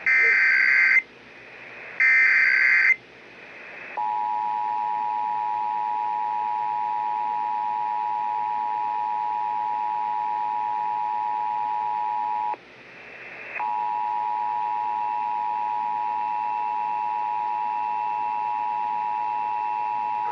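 Emergency Alert System test over broadcast radio: two one-second bursts of SAME header data tones, then the EAS two-tone attention signal (853 and 960 Hz sounding together). The attention signal stops briefly about twelve seconds in and starts again, running steadily.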